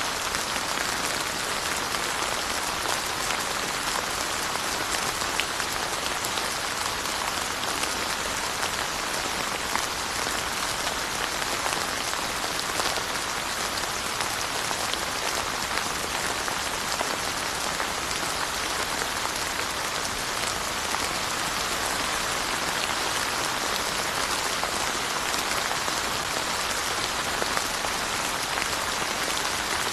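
Steady rain falling, a continuous hiss with many fine drop ticks on surfaces.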